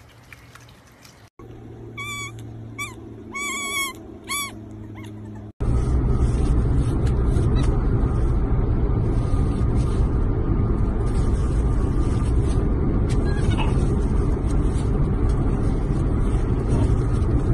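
Four short, high, squeaky animal calls with bending pitch, then, about five and a half seconds in, a sudden switch to the steady low rumble of road noise inside a moving car.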